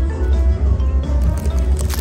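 Background music with a strong, pulsing bass and held tones, with a brief crinkle near the end.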